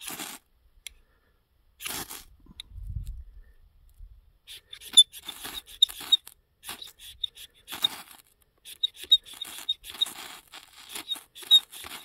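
Ferrocerium rod scraped with a steel striker: short rasping strokes throwing sparks, a couple near the start and then a quicker run of about one or two strokes a second from about four seconds in.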